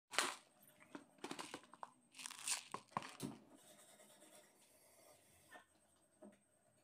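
Hands brushing and rubbing across a plastic tray while working clay: several short rustling, scraping bursts in the first three seconds or so, then only a couple of faint taps.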